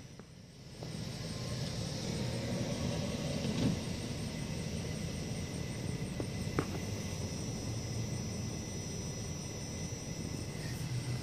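Steady low rumble under a continuous high insect trill, with a couple of faint clicks about four and seven seconds in.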